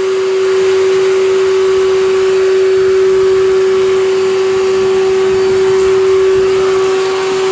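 Steady machine drone: a constant hum at one pitch over an even hiss, unchanging throughout.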